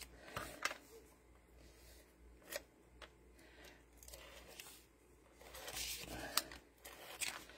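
Quiet handling of cardstock and patterned paper: soft rustles and slides as the sheets are pressed flat and moved about, with a few light clicks and taps.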